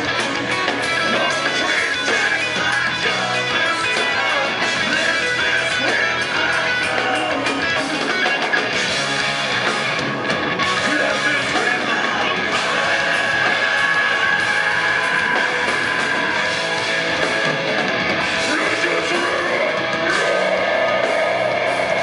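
A heavy metal band playing loud and live, with electric guitars and drums.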